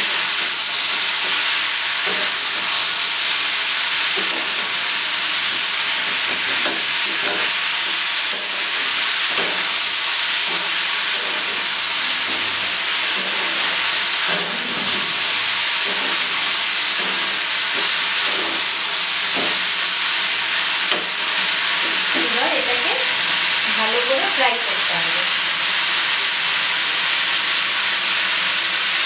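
Mixed vegetables sizzling in a kadai over a high gas flame, with a spatula scraping and knocking against the pan as they are stirred.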